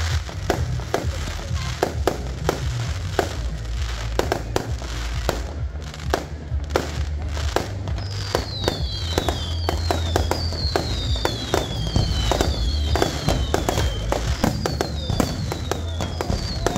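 Fireworks display: a rapid run of bangs and crackles from bursting shells, with a series of falling whistles starting about halfway. Music with a bass line plays underneath.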